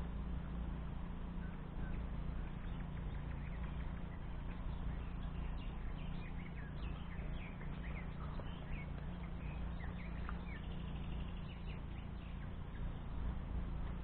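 Wind buffeting the microphone in a steady low rumble, with small birds chirping in the background, most busily in the middle.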